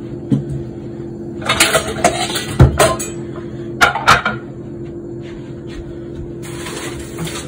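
A few sharp knocks and clatters of things being handled on a kitchen counter, the strongest a dull thump in the middle, over a steady low hum. A steady hiss comes in near the end.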